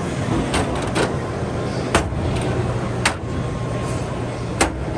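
Metal drawers of a Tekton rolling toolbox being pulled out and handled, giving a handful of sharp metal clacks, the loudest about two, three and four and a half seconds in, over a steady background din.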